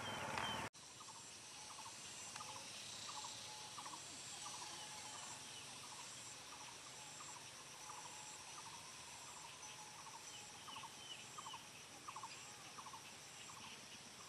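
Faint outdoor ambience: insects trilling high in a regular pulsing rhythm, with short chirping calls repeating every second or so. A louder rush of noise cuts off abruptly under a second in.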